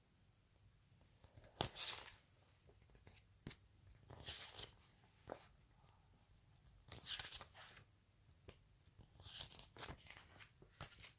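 Faint rustles of paper pages being turned one at a time in a thin booklet, one brief papery swish about every two to three seconds, with a few soft clicks between them.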